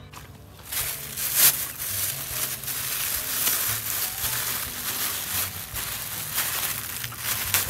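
Thin plastic fruit-protection bag crinkling and crackling as hands handle it around a guava on the tree. It starts about a second in with a sharp loud crackle, then continues as a steady crinkling.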